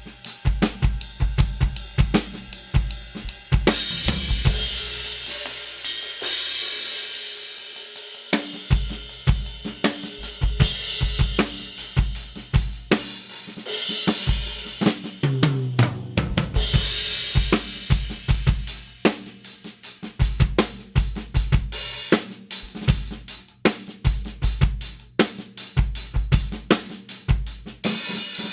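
Drum kit played with an Istanbul Mehmet Samatya cymbal set: a steady kick and snare groove under hi-hat and ride, with the cymbals swelling and ringing out several times as the drums drop back.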